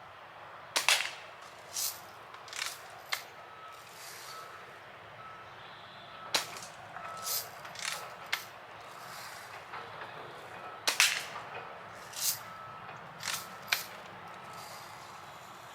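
Daisy Red Ryder BB gun fired three times, about five seconds apart, each shot followed by a few softer clicks and clacks. A faint beep repeats steadily in the background through much of it.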